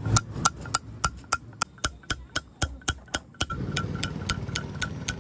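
Hand hammer striking a steel chisel against a sandstone slab in quick, even taps, about three or four a second, each with a short metallic ring. The carver is pecking the dotted roughened grinding face of a stone grinder. The taps grow softer after about three seconds, under a low rumble.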